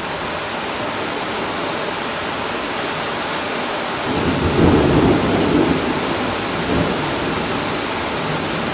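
Steady rain falling, with a rolling rumble of thunder that swells about four seconds in and fades a few seconds later, from a lightning strike judged to be about a mile away.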